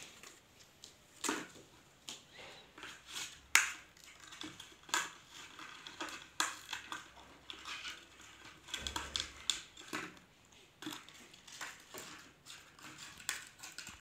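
An Alexandrine parakeet biting and tugging at plastic: irregular crackling and sharp clicks of beak on plastic, the sharpest about three and a half seconds in.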